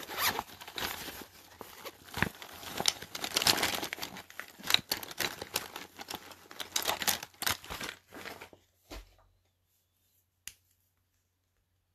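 Crinkling and rustling of something being handled, irregular and scratchy, for about eight and a half seconds, then a single sharp click near the end.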